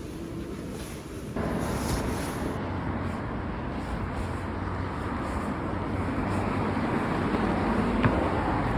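Steady rushing noise, like wind or road noise, that jumps louder about a second and a half in and then holds steady.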